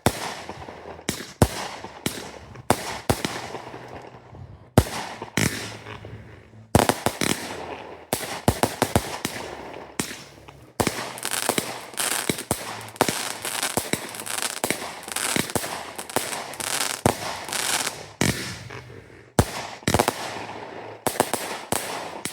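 Fireworks going off: a long series of sharp bangs, at times several in quick succession, with a dense noisy rush between them.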